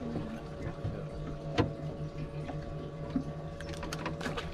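Water lapping and sloshing against a small fishing boat's hull over a steady low hum, with a sharp click about a second and a half in and a quick run of clicks near the end.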